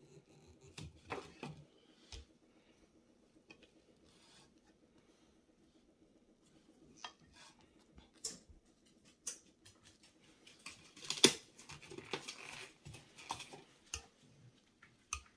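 Scattered light clicks, taps and clinks of kitchen utensils against a cast iron pot as butter pieces are put on top of the cornbread, busier in the second half with the loudest knock about eleven seconds in.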